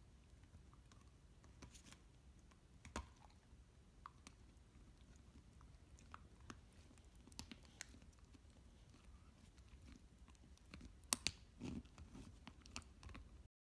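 Beagle puppy chewing a plastic whiffle ball: scattered soft clicks and crunches of teeth on hard plastic, with a few louder crunches near the end.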